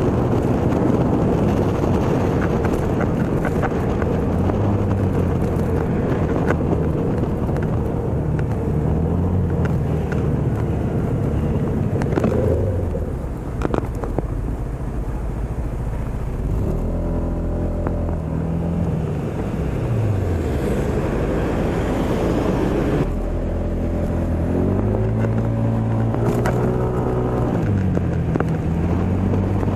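Engine of the moving vehicle carrying the microphone, its pitch rising and falling several times as it speeds up and slows in traffic, over a steady rush of road noise.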